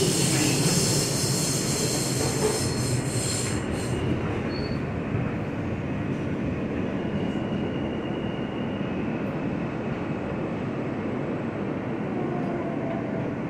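R160 subway car braking into a station, heard from inside the car: a steady rumble of wheels on rail, with a high squeal over the first four seconds that cuts off. The sound eases as the train slows.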